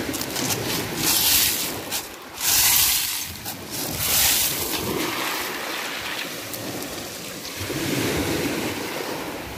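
Ocean waves washing onto the shore, with three louder surges in the first half, then a steadier wash. Wind buffets the microphone.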